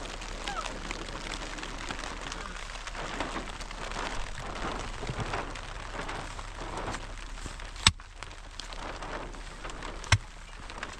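Steady rain falling on a surface, with two sharp knocks late on, about two seconds apart.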